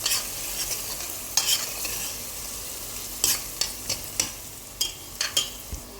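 Chopped onion and spices frying in ghee and oil in a pot, sizzling steadily. A utensil stirs the mixture, scraping and knocking against the pot several times.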